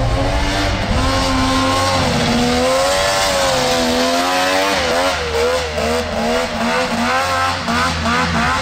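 Two-stroke engine of a track-converted Can-Am Maverick X3 side-by-side running, its revs rising and falling repeatedly, with quicker up-and-down swings in the second half.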